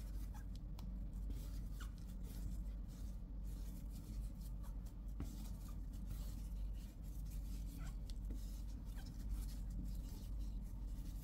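Faint scratchy rustling and a few soft clicks as flat polyester cord is drawn through stitches by a metal crochet hook, over a steady low hum.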